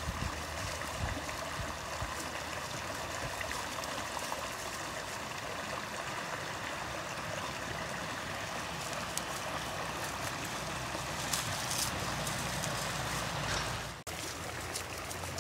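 A brook running steadily, a continuous trickling, babbling flow of water, dropping out for an instant near the end.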